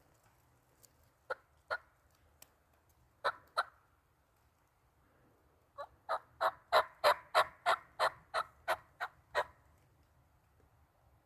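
Turkey yelping: two pairs of short, sharp notes, then a run of about a dozen yelps at about three a second that builds louder and then fades off.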